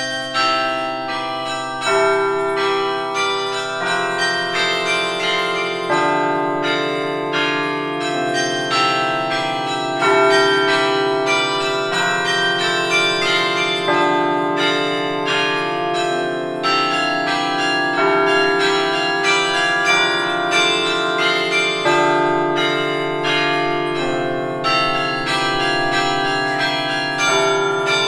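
Storke Tower carillon bells playing a tune, hand-struck from the baton keyboard: a quick melody of overlapping ringing notes over lower bells that change every couple of seconds.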